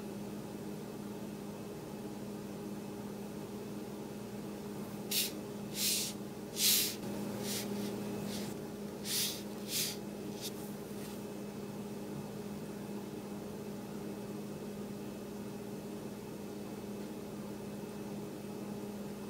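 About eight short, sharp taps of a fingertip on a tablet's touchscreen, roughly one every second, as a Wi-Fi password is entered and Connect is pressed, over a steady low hum.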